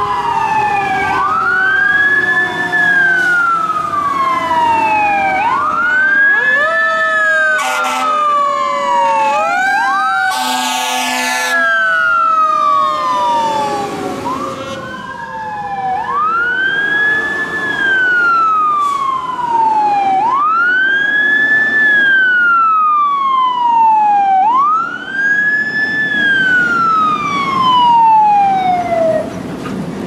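Fire truck sirens wailing, each sweep climbing quickly and falling away slowly, repeating about every four to five seconds, with two sirens overlapping in the first half. Air horns blast briefly about eight seconds in, then longer at around ten to twelve seconds.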